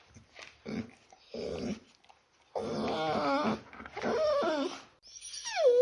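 Small dog whimpering: a few short grunting snuffles, then wavering, drawn-out whines, the last one falling in pitch near the end.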